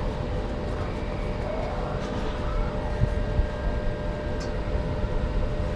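Steady low rumble with a faint hum underneath, a train-like ambient rumble in the dark ride.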